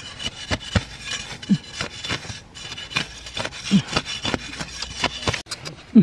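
A hand blade scraping and cutting at grass and dry soil in a run of short irregular scrapes and clicks while a patch of ground is cleared.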